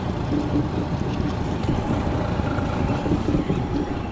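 Honda four-stroke outboard motor running steadily at low trolling speed.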